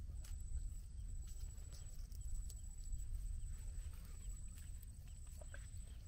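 Wind rumbling on the microphone, with a faint steady high whine and a few soft clicks and rustles as a mud crab is handled and tied up.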